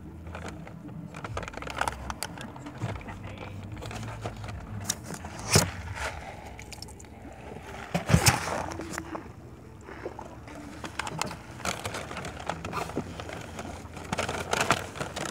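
White paper takeout bag rustling and crinkling as it is handled, with two sharp knocks about five and a half and eight seconds in, over a low steady hum of the vehicle.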